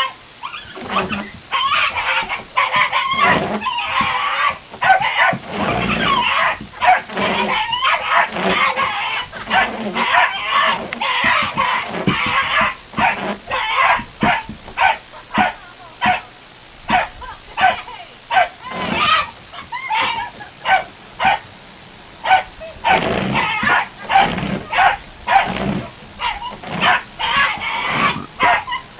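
Rubber squeaky dog toy squeaked over and over in quick, irregular runs of short high squeaks.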